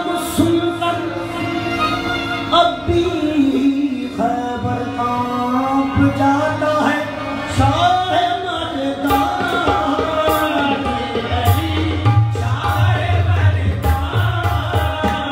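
Qawwali performance: harmonium chords and melody with men singing over them, accompanied by tabla-style hand drumming that becomes more prominent about nine seconds in.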